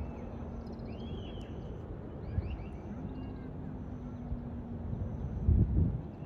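Distant low rumble of a Boeing C-17 Globemaster III's four turbofan engines as it makes a banking turn, with small birds chirping. A short, louder low burst comes near the end.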